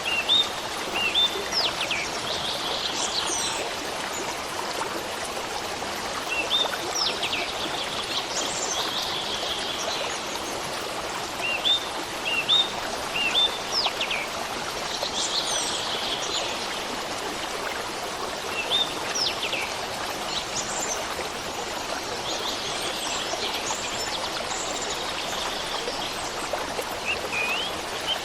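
Running water of a stream flowing steadily, with birds chirping and singing over it in short repeated bursts of calls every few seconds.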